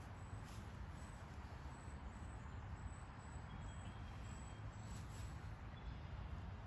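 Quiet outdoor background noise with a steady low rumble, and a faint thin high tone for about a second midway through.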